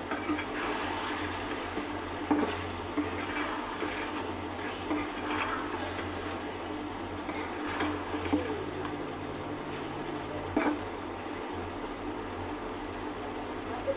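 Pot cooking on a stove, a metal spoon knocking against the pot a few times, over a steady hum and hiss.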